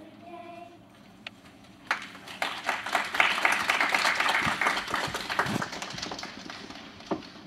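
A child's singing ends, then a small congregation claps for about four seconds, starting about two seconds in, swelling quickly and fading away.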